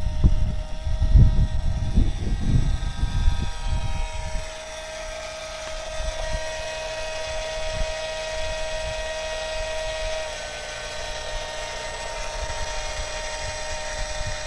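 Electric motor and propeller of an EasyStar II RC model plane whining steadily, its pitch dropping slightly about ten seconds in. Wind gusts rumble on the microphone for the first four seconds.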